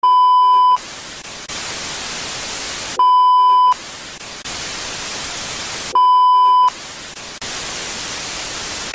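Television 'no signal' test-card sound: a steady test-tone beep, about three-quarters of a second long, sounds three times three seconds apart, each time followed by a loud hiss of TV static.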